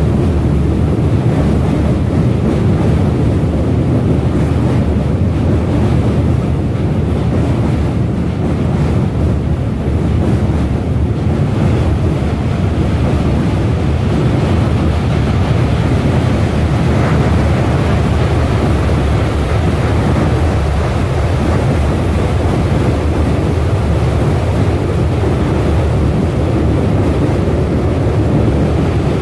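Indian Railways passenger train coaches rolling across a steel truss bridge: a loud, steady low rumble of wheels on the rails and bridge.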